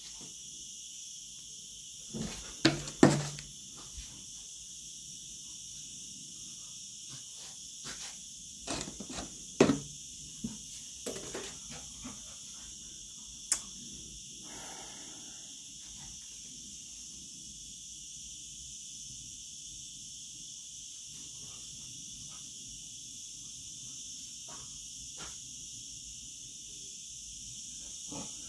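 Steady high-pitched chirring of insects. A few short clicks and knocks stand out over it, the loudest about three seconds in and again about nine to ten seconds in.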